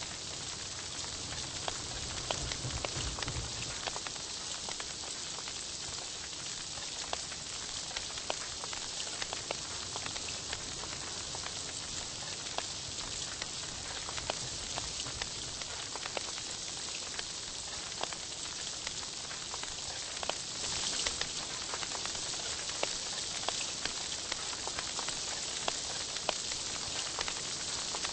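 Meat sizzling on a tabletop Korean barbecue grill: a steady crackling hiss with many small pops.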